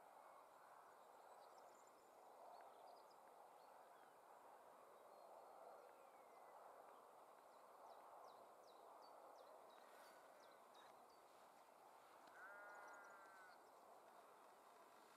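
Near silence: faint open-air ambience with scattered faint high chirps, and one short distant animal call about twelve seconds in.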